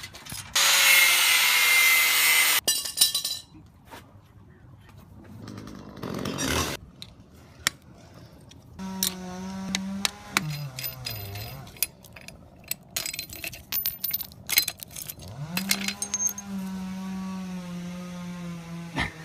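A loud burst of power-tool cutting for about two seconds, with a thin whine over it, and a shorter burst a few seconds later. After that a small engine runs at a steady pitch; its speed sags about halfway through and comes back up.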